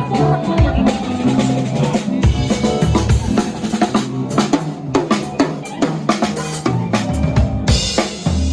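Rock drum kit played at a live sound check: rapid kick drum and snare hits with cymbals, with some sustained low instrument notes underneath.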